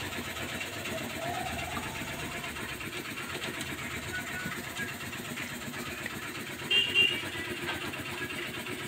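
Small motorcycle engine idling steadily, with a short high-pitched beep about seven seconds in.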